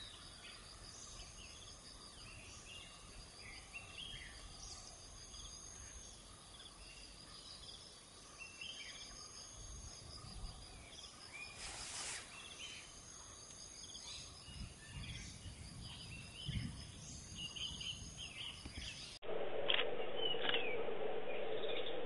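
Wild forest birds giving scattered short chirps and calls over a steady high insect drone. About nineteen seconds in, the sound cuts abruptly to a louder, more muffled recording with more chirps over a steady low hum.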